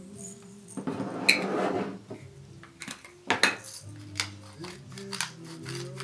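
Clinks and knocks of a glass pepper grinder being handled on a wooden table, with a short rasping burst about a second in, over background music.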